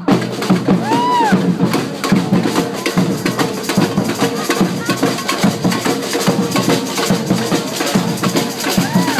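Live street percussion group drumming a dense, steady rhythm, with crowd voices under it and a brief gliding call or whistle about a second in and again near the end.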